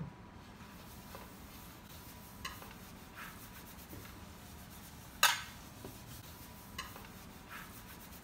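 Oil being rubbed around a metal baking tray by hand with a paper tissue: faint rubbing and scraping, with a few light knocks and one sharper clatter about five seconds in.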